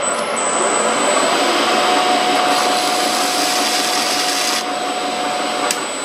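Metal lathe running with a brass bar spinning in the chuck: a steady motor and spindle noise with a thin high-pitched whine. A second, lower tone joins about two seconds in and stops with a click near the end.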